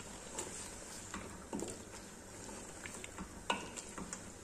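Wooden spoon stirring chicken and vegetables in tomato sauce in a large aluminium pot over a faint sizzle, with a few soft knocks and scrapes of the spoon against the pot, the clearest about three and a half seconds in.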